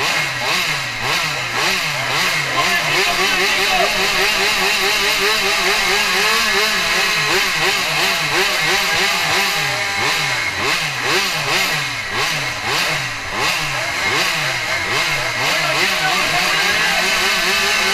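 Several 80 cc racing motorcycle engines revving over and over while the bikes stand still on the start line, pitch rising and falling about one to two times a second.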